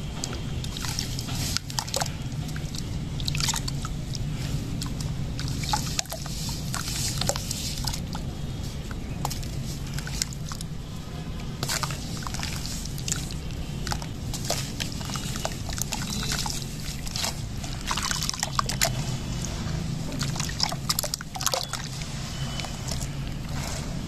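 Hands squeezing and crumbling wet sand-and-cement chunks in a basin of water: repeated splashing, sloshing and gritty crumbling, with music playing steadily underneath.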